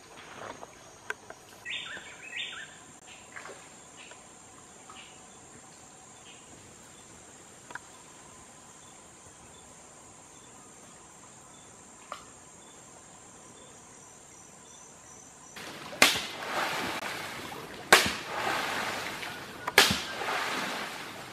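Forest ambience of steadily buzzing insects with a few short bird calls. Then three loud splashes in the water about two seconds apart, each trailing off in a rush of spray.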